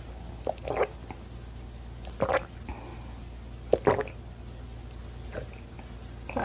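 Close-miked wet mouth sounds of eating: five short squishy bursts, about one every one and a half seconds, over a steady low hum.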